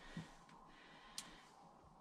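Near silence: room tone, with one faint short click a little over a second in.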